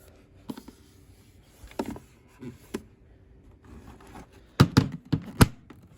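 Faint steady hum of a small mini fridge running, with light clicks of handling, then four sharp knocks and thumps close together about three-quarters of the way in as the fridge is handled.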